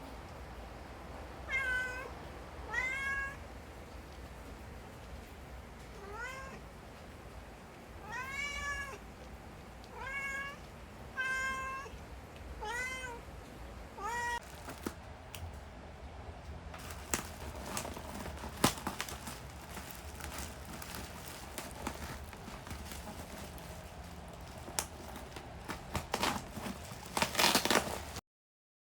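A cat meowing about eight times in the first half, each a short arching call. After that, a scattered run of sharp clicks and taps, the loudest about eighteen seconds in, until the sound cuts off suddenly near the end.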